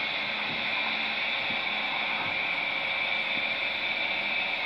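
A steady hiss with a faint hum underneath, unchanging throughout.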